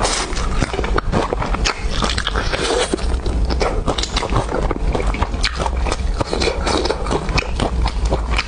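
Close-miked eating: biting and chewing, a dense, unbroken run of short crunches and smacks over a steady low hum.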